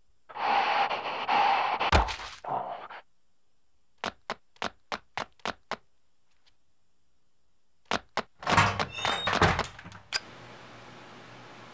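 Foley sound effects: a scraping rustle that ends in the heavy thunk of a car door shutting about two seconds in, then seven sharp, evenly spaced footsteps, then a clatter of knocks and rattles ending in a single click, after which a steady low hiss.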